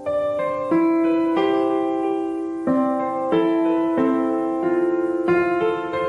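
Background piano music: soft, slow chords with notes struck every second or so and left to ring out.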